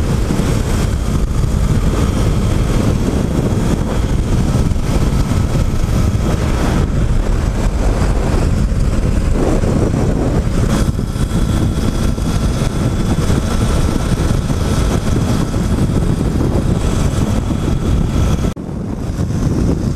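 Steady wind rush on the microphone of a camera on a Triumph Tiger 800 XCA at highway speed, with the bike's engine and road noise underneath. The sound dips briefly near the end.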